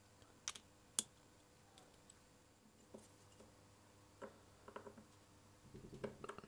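Faint, sharp metallic clicks of small model-engine parts, a conrod and its mating steel part, being handled and fitted together by hand, twice in the first second. Later come clusters of small ticks and scrapes as a small hand tool works at the assembly.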